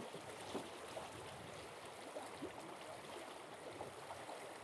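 Shallow rocky stream rushing over stones in a riffle, a faint, steady flow of water, with a few small ticks.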